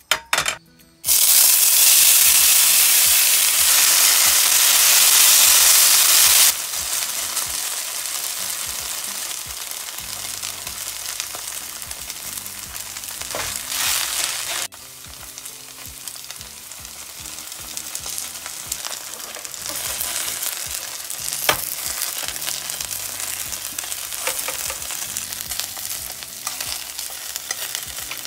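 Shredded potato and diced ham frying in hot oil in a stainless steel pan. A loud sizzle starts suddenly about a second in, then settles after about five seconds into a steadier, quieter sizzle as the shreds are stirred and spread with a spatula, with a couple of sharp clicks along the way.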